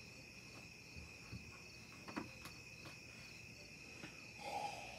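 Steady chirping of crickets, with a few faint knife clicks on a cutting board as a hot pepper is cut, and a short breathy sound near the end.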